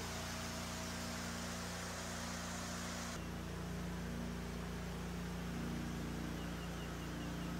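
Steady drone of mobile dewatering pumps running, a constant low hum under a hiss. The sound shifts abruptly about three seconds in.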